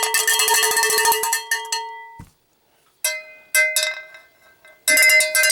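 Cowbell rattled rapidly in two bursts, ringing with fast strikes. The first burst cuts off sharply about two seconds in; after a short silence and two single strikes, a second burst begins near the end at a higher ring.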